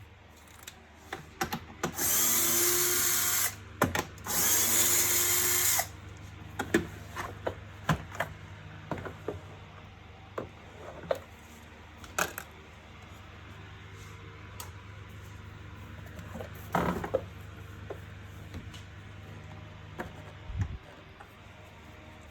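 Electric drill-driver run twice in steady spurts of about one and a half to two seconds, early in taking apart a vacuum cleaner's plastic covers. After that come scattered clicks and knocks of plastic parts being handled.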